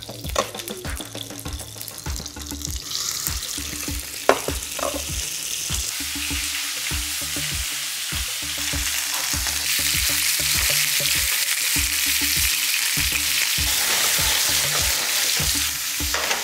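Chunks of wild boar pancetta sizzling in hot fat in a frying pan over a gas flame. The sizzle swells about three seconds in and grows louder, with one sharp clack about four seconds in.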